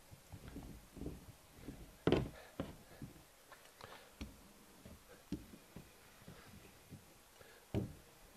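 Scattered soft knocks and handling noises from a hard-rubber hand roller being worked over a foam pad on a plastic kayak deck. The two loudest knocks come about two seconds in and near the end.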